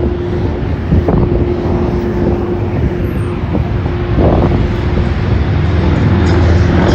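Traffic on a busy city street, cars driving by with a low rumble that swells near the end, over wind buffeting the phone's microphone. A steady hum runs underneath.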